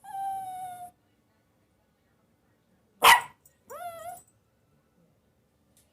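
A dog vocalizing: a drawn-out, slightly falling whine-like cry at the start, then one loud, sharp bark about three seconds in, followed by a short cry that rises and falls.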